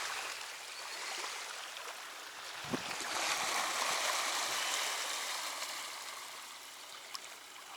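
Steady rush of splashing water that swells in the middle, with one short dull thud almost three seconds in.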